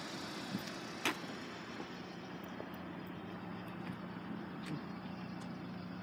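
Steady outdoor background noise with a single click about a second in and a steady low hum that sets in about two seconds in.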